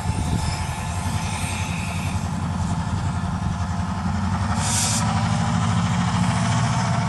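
Diesel-electric freight locomotives running as they pass, a steady low engine rumble that grows slightly stronger in the second half. A brief hiss cuts in about two-thirds of the way through.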